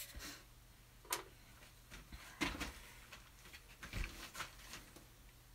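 A handful of faint, separate clicks and soft knocks from painting supplies being handled: a paint cup and brush picked up and moved.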